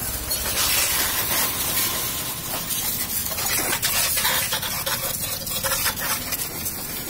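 Water jet from a garden hose spraying onto a motorcycle's rear mudguard, tail lamp and number plate: a steady hiss of spray with fine splattering.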